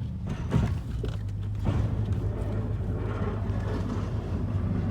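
Dodge Ram 2500's Hemi V8 running steady and low, heard from inside the cab, with a single click about half a second in and a fuller, louder engine and road noise from about two seconds in.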